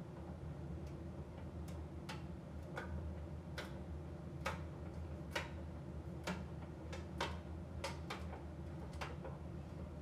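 AEG AbsoluteCare heat pump tumble dryer running in its drying phase: a steady low hum from the running machine, with irregular light clicks and taps, about one or two a second, as the cotton load tumbles in the turning drum.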